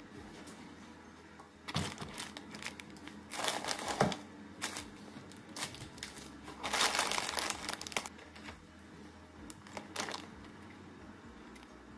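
Plastic grocery packaging crinkling and rustling in several bursts as shopping is handled and set down on a counter, with a sharp knock about four seconds in.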